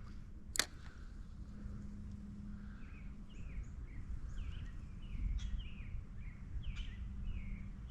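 A small songbird calling repeatedly, short downward-sweeping chirps about two a second, over steady low outdoor noise by a creek. A single sharp click sounds about half a second in.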